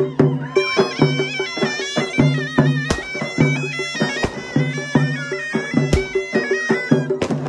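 Zurna (a loud double-reed shawm) playing a wavering, ornamented folk melody over large double-headed drums beaten with sticks in a steady rhythm.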